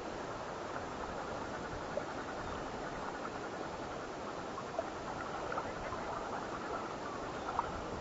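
Steady outdoor noise of wind and water on an exposed microphone, with a few faint short chirps now and then.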